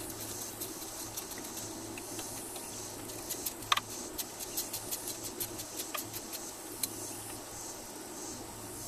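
Small metal clicks and ticks from hand tools and parts at the front brake caliper and wheel hub of a 1992 Chevy Silverado, taken apart for a wheel bearing change. The clicks come in a quick irregular run in the middle, with one louder ringing metal clink just before four seconds in.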